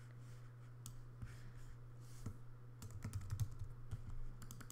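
Faint clicks and taps on a computer keyboard: scattered keystrokes at first, then quicker runs of typing about three seconds in and again near the end.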